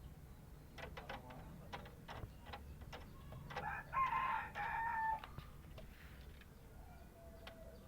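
A bird gives one loud crowing call lasting about a second and a half, a few seconds in, after a run of sharp clicks and taps.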